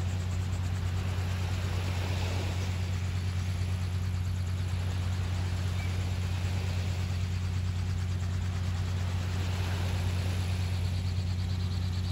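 An engine running steadily at idle, a constant low hum that does not change in pitch or level.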